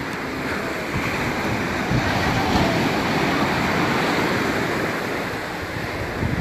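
Sea waves breaking on a sandy beach, the surf washing up the shore in a steady rush that swells about halfway through and eases off near the end.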